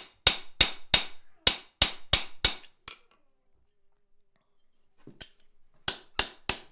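Light hammer peening the end of a steel tenon into a rivet head, the iron backplate held on a round-bottom swage on the anvil. A quick run of about nine ringing strikes, roughly three a second, then a pause and four more blows near the end.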